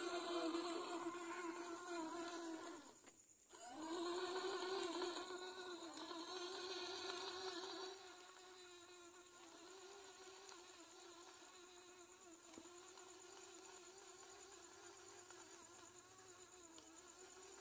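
Small electric gear motors of a homemade remote-controlled robot whining steadily as it drives. The whine cuts out briefly about three seconds in and grows much fainter after about eight seconds.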